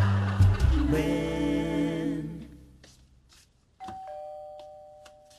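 A short sung jingle holds its last chord and fades, then a two-tone ding-dong doorbell rings, a higher note and then a lower one, dying away over about two seconds.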